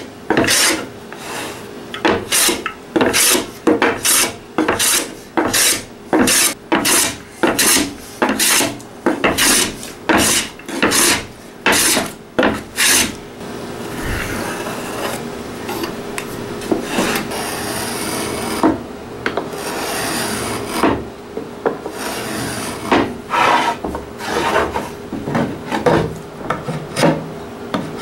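Japanese wooden hand plane (kanna) taking quick shaving strokes along a maple board, a sharp swish about twice a second for the first half. After that a quieter, steadier rubbing, then shorter, irregular strokes near the end.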